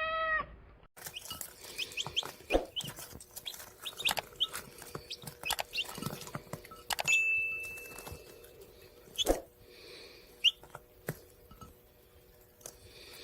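Domestic chickens clucking, with many short chirps scattered throughout. The tail end of a cat's meow is heard in the first half second.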